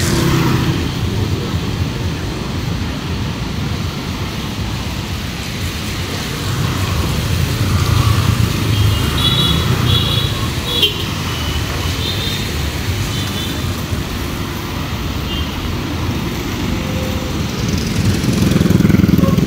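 Street traffic on a wet road: cars and motorbikes passing close by, their engines and tyre hiss swelling and fading, loudest about a third of the way in and again near the end.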